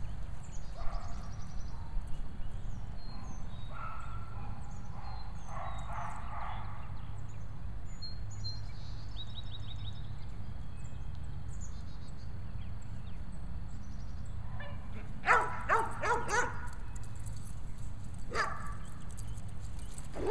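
A dog barking: a quick run of four or five loud barks about three-quarters of the way through, one more bark a couple of seconds later, and a few fainter calls in the first half. Birds chirp in the background over a steady low rumble.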